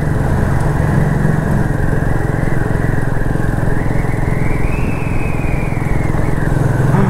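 Motorcycle engine running steadily while riding at speed, with a constant rush of road and wind noise.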